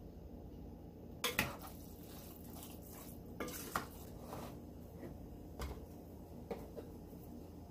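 A spoon stirring a rice, chicken and tomato-sauce stuffing in a ceramic bowl, with irregular clinks and scrapes against the bowl, the loudest about a second in and near the middle.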